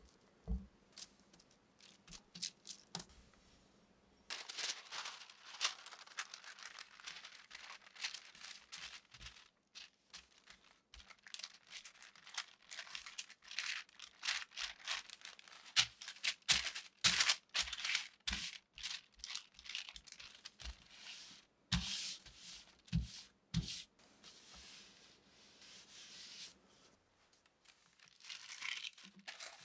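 A few soft taps of a silicone spatula in a glass bowl of tart dough. Then, from about four seconds in, a wooden rolling pin rolls the dough out on baking paper, with steady crinkling and rustling of the paper and sharp clicks as it shifts.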